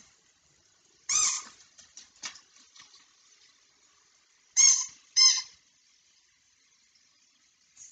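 Pizza-slice squeaky toy squeezed by hand, giving three short, high squeaks: one about a second in, then two close together a little past the middle.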